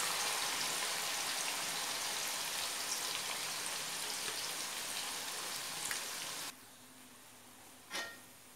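Sliced onions deep-frying in hot oil in a kadhai: a steady, even sizzling hiss as they fry towards golden brown. It cuts off abruptly about six and a half seconds in, leaving near silence with one brief faint sound near the end.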